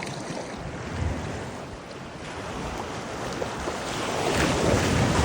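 Surf washing up on a beach, rising louder near the end as a wave comes in, with wind buffeting the microphone.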